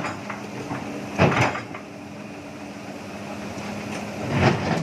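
Heavy diesel engine running steadily, with two loud clanks, one about a second in and one near the end.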